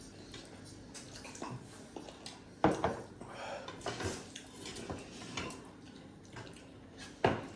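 Eating utensils clinking and scraping against plates and bowls, with two sharper clatters, one about two and a half seconds in and one near the end.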